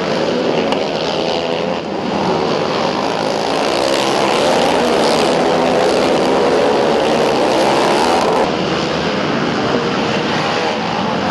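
Several racing quad (ATV) engines running hard together, their pitches wavering up and down as they rev through the turns. The sound grows louder a few seconds in and eases off about eight and a half seconds in.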